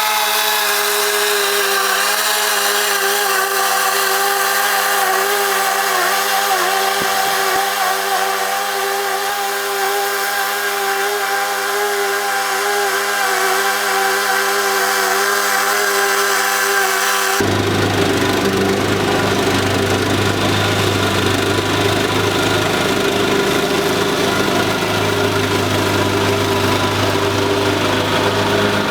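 Mower engine running steadily at working speed while cutting grass, its pitch wavering a little under load. About seventeen seconds in the sound changes abruptly to a rougher, deeper engine tone.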